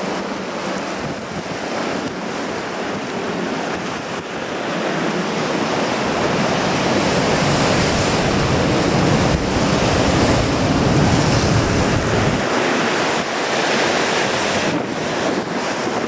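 Ocean surf breaking on a rocky shore in strong wind, swelling to its loudest about two-thirds of the way through. Wind buffets the microphone with a low rumble that drops away suddenly near the end.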